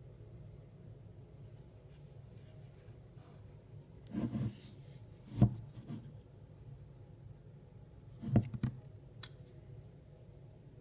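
Wooden cigar box being handled: a brief rustle about four seconds in, a single knock, then two or three quick clicks and knocks near the end.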